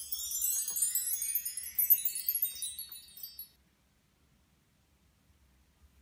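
A shimmering chime sound effect: a cascade of high tinkling bell tones that spread and fall in pitch, cutting off about three and a half seconds in.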